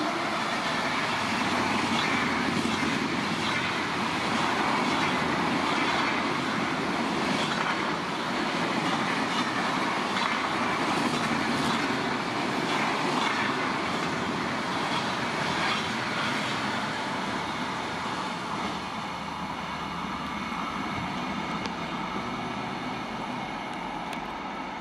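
Electric-hauled express train passing at high speed: a steady rush of coaches and wheels on the rails, easing off gradually over the last several seconds as the train goes by.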